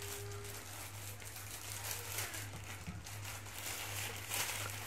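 Plastic packaging bags rustling and crinkling as a laptop sleeve is pulled out of its clear bag, loudest near the end, over a steady low hum.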